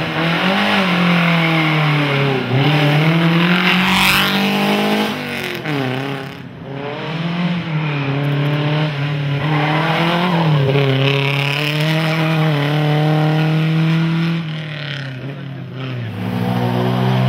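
The 1500 cc engine of a 1935 Lagonda Rapier racing car under hard acceleration. Its note climbs and drops back several times as the throttle is opened and lifted.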